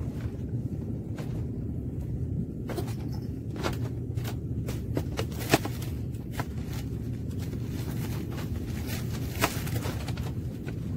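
Scattered sharp clicks and knocks of fishing gear being handled on a wooden deck, over a steady low rumble.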